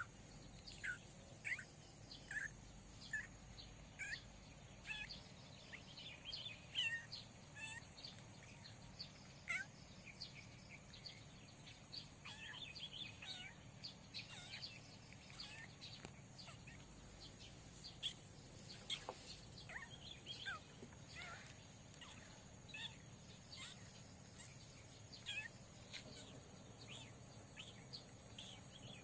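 Small birds chirping in short, sharp downward notes, several every couple of seconds, over a steady high insect trill.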